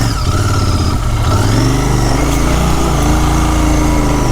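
Royal Enfield Continental GT 650 parallel-twin engine running under load as the bike climbs a slope, its revs rising and easing several times.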